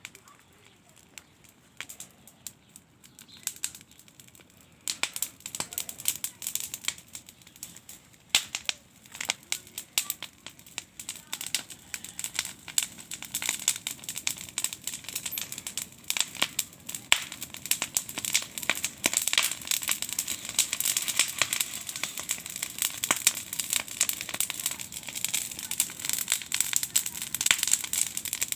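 Wood and branch fire crackling, the snaps sparse at first and growing much denser from about five seconds in, building steadily as the fire takes hold.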